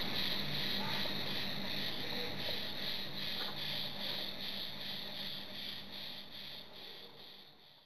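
Insects chirping in a steady pulsing rhythm, a few high chirps a second, fading out near the end.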